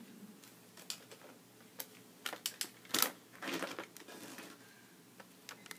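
Scattered light clicks and taps with soft rustling, the loudest about three seconds in: a plastic TV remote and plush toys being handled on carpet.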